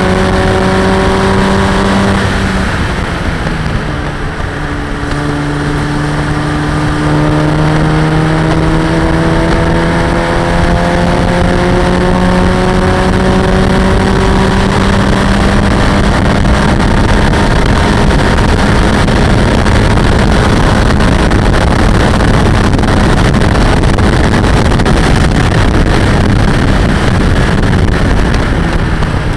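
Locost race car's engine running at high revs, heard from the open cockpit with wind rush on the microphone. About two seconds in the revs drop, as with a change up a gear, then climb slowly and hold high, falling again at the very end.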